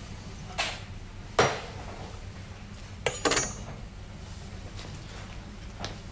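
A kitchen knife chopping and clanking on a cutting board and against metal: a few separate sharp hits, the loudest about a second and a half in, and a quick double clank near the middle with a brief metallic ring, over a steady low hum.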